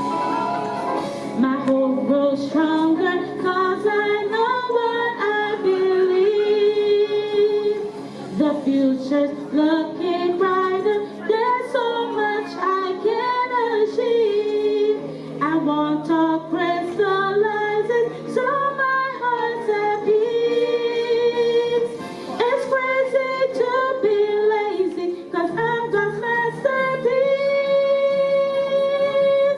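Song with a female voice singing a flowing, rising and falling melody over a backing track, with long held notes.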